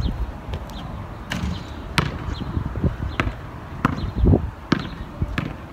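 Basketball being dribbled on asphalt: a series of sharp bounces, roughly one every half second to second.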